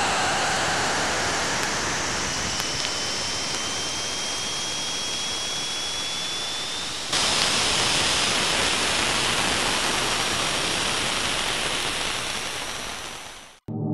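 Saturn ring-region plasma and radio-wave data from the Cassini spacecraft, converted to sound: a steady hiss with faint whistling tones, one of them slowly rising in pitch. The hiss brightens abruptly about halfway through and fades out near the end.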